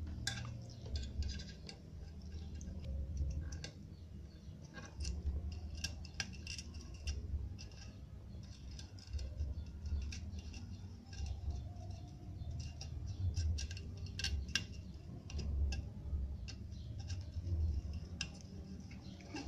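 A thin metal pick scraping and clicking against a subwoofer's solder-tab terminal strip while a soldering iron is held on the joint, picking out old tinsel wire and solder: scattered light clicks and scratches at an uneven pace, over a low background rumble.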